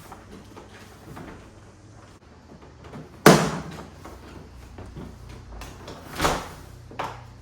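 A luggage travel case being handled and opened: a loud sharp clack about three seconds in, then a softer knock about six seconds in and a short one near the end.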